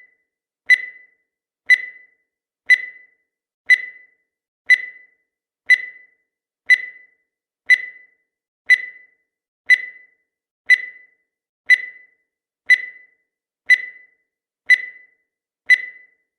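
Countdown timer sound effect: a short, high-pitched electronic blip once every second, each one dying away quickly, marking off the seconds of the countdown.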